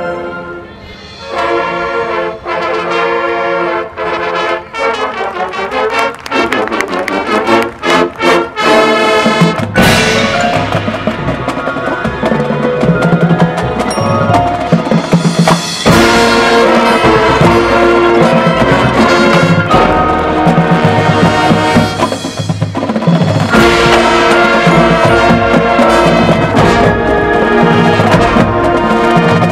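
Marching band playing a field show, brass over percussion. The music is thinner for the first ten seconds, then the full band comes in loud with a heavy low end about ten seconds in.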